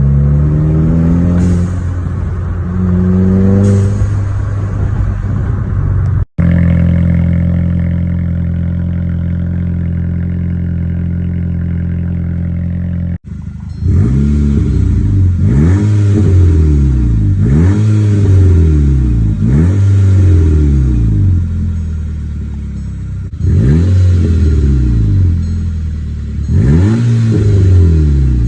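Mk6 VW GTI's turbocharged 2.0-litre four-cylinder engine with an open downpipe (downpipe removed, no exhaust behind the turbo). It is revved twice, then holds a steady note, then is revved in a quick series of blips, each one rising and falling.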